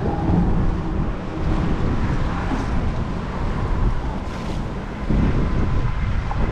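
Wind buffeting the microphone over a steady low outdoor rumble, getting louder about five seconds in.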